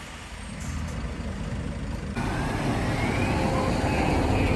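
Heavy multi-axle truck on the road, a low rumble; about two seconds in it cuts to a louder, steadier truck engine noise.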